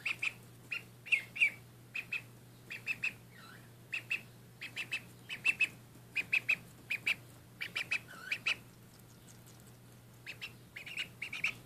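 Runner duckling peeping: short, high peeps in quick runs of two to four, over and over, with a few longer calls that dip in pitch.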